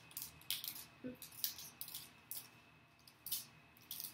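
A small packet of rocket blast-off pellets being handled in the fingers, the wrapper crinkling in a quick, irregular series of short crackles.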